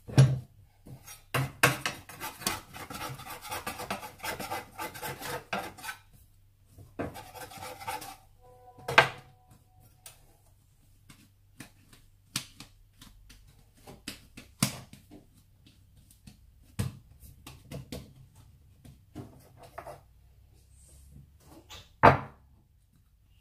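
Hands kneading and shaping a ball of bread dough on a wooden chopping board: stretches of rubbing and scraping with several sharp thumps of the dough on the board, and a knock near the end as the dough is pressed into a ceramic baking dish.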